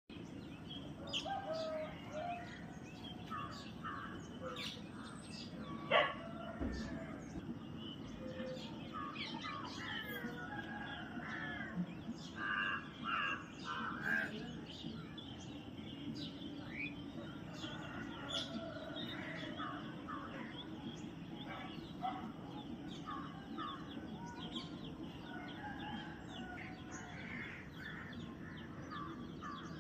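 Several birds calling, many short chirps and repeated notes overlapping, over a steady low background rumble. A single sharp knock about six seconds in.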